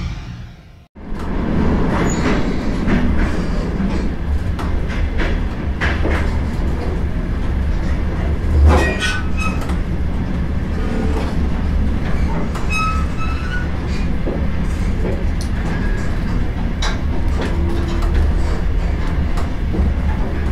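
Interior of an old railway carriage in motion: a steady low rumble from the wheels and running gear, with frequent knocks and rattles from the car body and a louder jolt about eight and a half seconds in. Brief high-pitched wheel squeals sound around nine and thirteen seconds in. The tail of intro music fades out in the first second.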